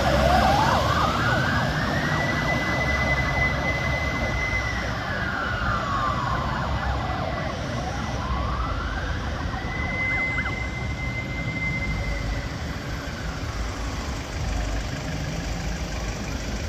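Fire engine's siren on a slow wail: it rises, holds high for a couple of seconds, then falls, twice over, growing fainter as the pumper drives away. The truck's engine runs low underneath.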